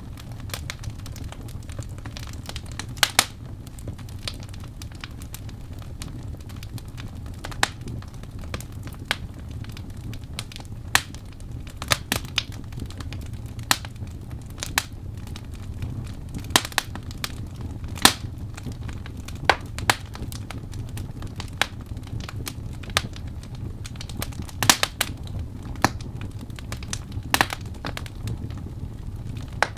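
Wood fire crackling in a fireplace: irregular sharp pops, about one or two a second, over a steady low rumble.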